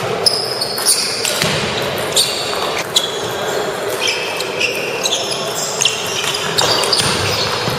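Irregular sharp clicks of table tennis balls bouncing and being struck in a large gym hall, over a steady background murmur of voices, with a few short high squeaks.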